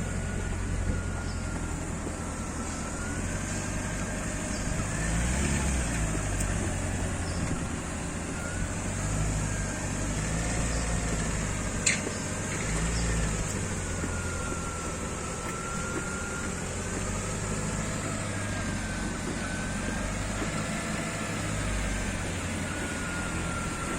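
Steady low drone of a vehicle running, with a faint tone that slowly rises and falls above it and a single sharp click about twelve seconds in.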